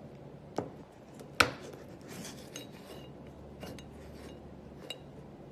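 Metal toilet-partition gravity hinge handled and set down on a hard surface: a few sharp metal knocks and clinks, the loudest about a second and a half in, some with a light ring.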